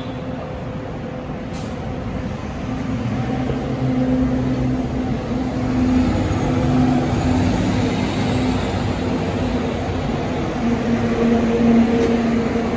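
Two city buses driving past close by in turn, engines running with a steady hum that grows louder as they near.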